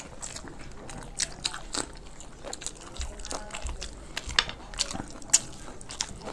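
Eating sounds from a khichuri and beef curry meal: wet chewing and mouth smacks, with irregular sharp clicks, the loudest about five seconds in.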